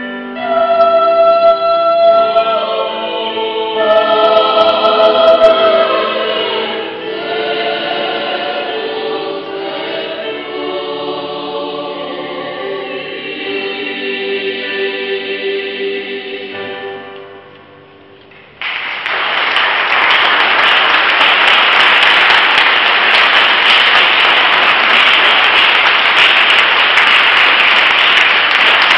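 A choir singing in several parts, ending on a held chord that fades away about seventeen seconds in. A second later the audience breaks into loud, steady applause.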